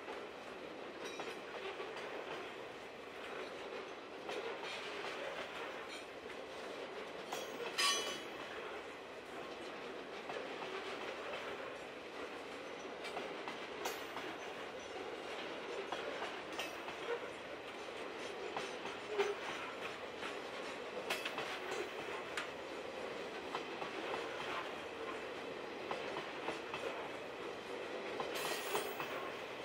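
Grain hopper wagons rolling past on the rails: a steady rolling rumble of steel wheels with scattered clicks over rail joints, and a brief sharp metallic screech about eight seconds in.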